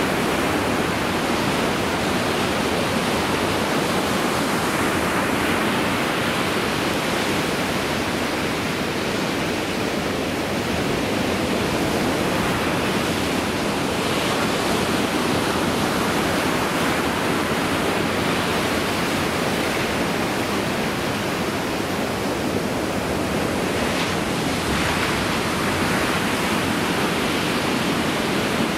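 Ocean surf breaking on a sandy beach and against a pipe, a steady rushing noise.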